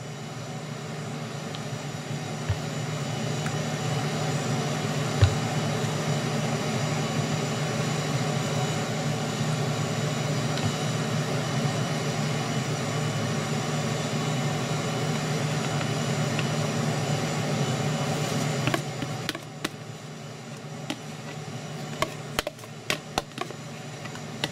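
Steady machine hum with a hiss that builds over the first few seconds and cuts off abruptly about nineteen seconds in. Scattered light clicks and taps follow.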